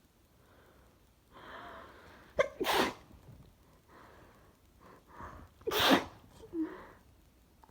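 A woman sneezing twice, each sneeze led in by a drawn-in breath. The first comes about two and a half seconds in, the second, equally loud, near six seconds. She thinks she may be coming down with a cold.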